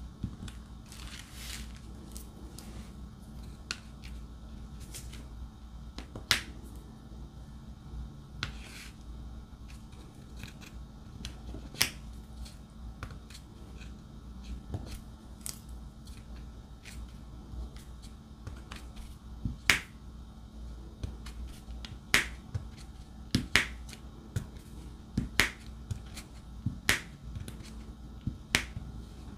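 Diamond painting pen tapping resin drills onto the sticky canvas: scattered sharp clicks, coming more often and louder in the last third.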